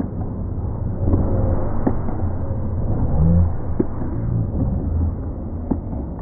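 Wind buffeting the camera's microphone, an uneven low rumble, with a few faint knocks.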